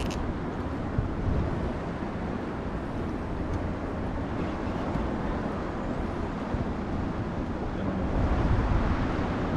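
Steady wind rumble on the microphone with a rush of moving water beneath it.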